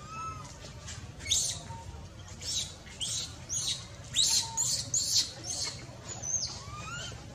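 A baby macaque crying in a run of about ten short, shrill squeals over some five seconds, with fainter rising calls underneath.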